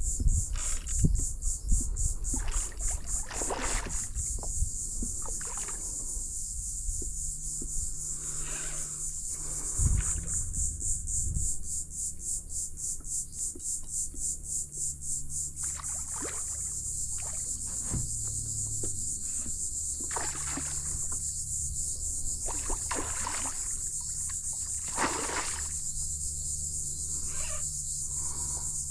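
Water splashing and sloshing around a kayak in irregular bursts, strongest in the first few seconds and again about ten seconds in, over a steady high-pitched pulsing buzz of insects and a low rumble.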